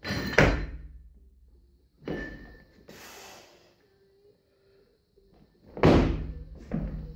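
Loaded barbell in a clean and jerk. The bar and plates clank sharply as the bar is caught on the shoulders, and again about two seconds later. Near the end come two more loud clanks with the stamp of feet as the bar is driven overhead into the split.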